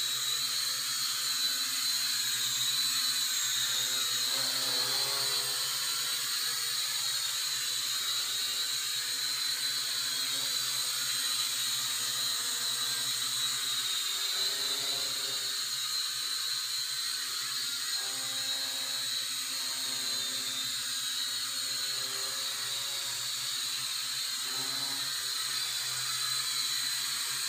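JJRC V686 toy quadcopter hovering, its motors and propellers giving a steady high-pitched whine over a lower buzz, the pitch wavering slightly as it holds position.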